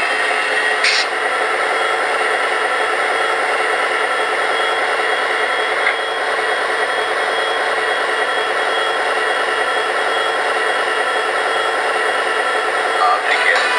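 MTH RailKing Coors Light Silver Bullet O-gauge model steam locomotive running on three-rail track: a steady whir and hiss of motor and wheels, with a brief click about a second in and another about six seconds in.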